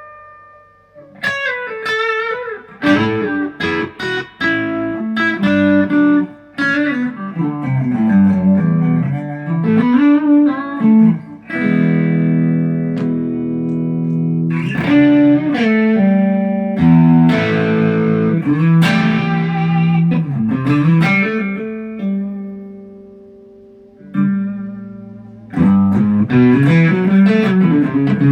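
ESP LTD EC-256 electric guitar being played, a run of picked single notes and ringing chords with brief pauses where the notes die away.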